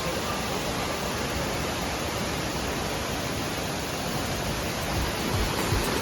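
Steady rush of water from a waterfall cascade, an even noise that holds constant throughout.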